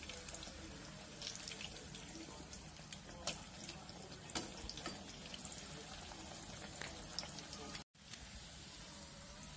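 Wheat-flour malpuas frying in hot oil in a shallow pan: a steady low sizzle with scattered crackles and a few sharper pops. The sound drops out for an instant near the end.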